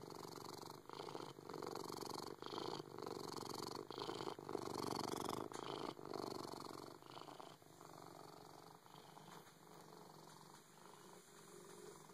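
Siamese cat purring, the purr breaking briefly with each breath and turning softer about seven seconds in.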